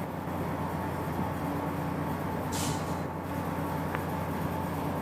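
Steady low mechanical drone, like an engine or machine running in the background, with a brief hiss about halfway through and a faint click near the end.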